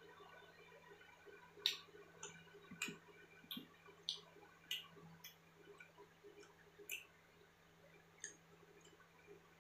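A person chewing food with the mouth closed: a string of short, sharp wet mouth clicks and smacks, about one every half second to second, unevenly spaced.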